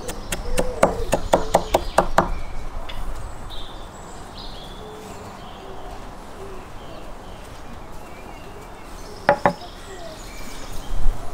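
Large kitchen knife chopping fresh herbs on a wooden cutting board: a quick run of knocks, about four a second, for roughly two seconds. After a quieter stretch, two more knocks come about nine seconds in.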